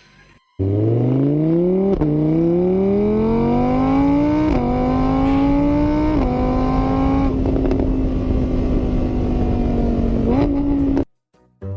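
A vehicle engine accelerating through several gears: its pitch climbs, dips back at each of three shifts, then holds steady and cuts off suddenly near the end.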